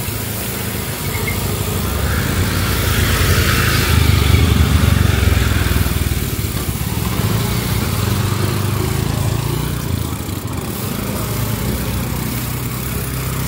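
Small motorcycle engines running in a narrow alley, louder about four to six seconds in as a motorbike rides close by.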